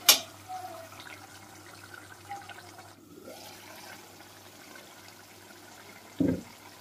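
Chicken curry gravy with potatoes simmering in a kadai, a soft steady bubbling of liquid. A sharp click comes at the start and a short low thump near the end.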